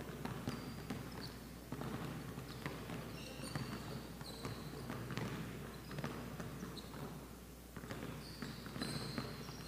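Several basketballs bouncing irregularly on a hardwood gym floor as players pound-dribble and hop, with short sneaker squeaks.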